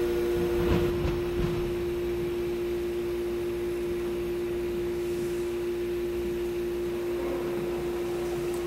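A steady humming drone held on one tone, with two soft knocks about a second in.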